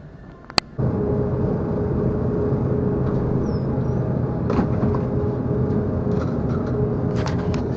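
A sharp click, then just under a second in a loud steady mechanical noise sets in, with a low hum and a constant mid-pitched tone.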